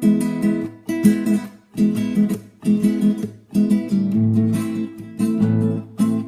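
Mariachi-style music on strummed acoustic guitar: chords strummed in a quick rhythm with a few short breaks, and a low bass line joining about four seconds in.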